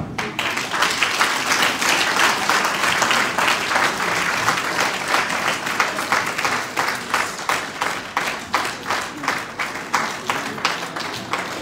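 Audience applauding: a dense burst of applause that, about seven seconds in, thins into rhythmic clapping in unison at about three claps a second.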